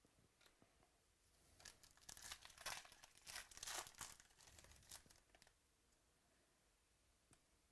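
Faint crinkling and tearing of a trading-card pack wrapper being opened by hand, a run of rustling strokes for about four seconds that stops short of the end.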